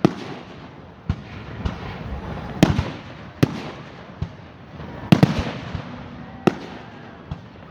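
Fireworks display: a string of sharp bangs from bursting shells, irregularly spaced about a second apart, over a continuous crackle. The loudest bangs come about a third of the way in and again past the middle.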